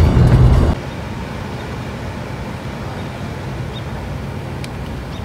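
Background music that cuts off suddenly under a second in, giving way to a steady, even rush of road and vehicle noise.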